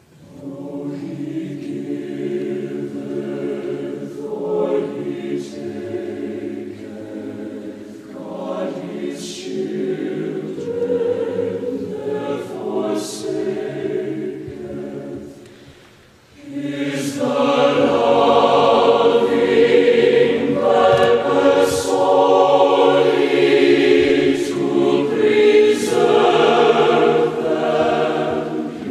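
Choir singing a hymn in held chords; it dips briefly about sixteen seconds in, then comes back louder.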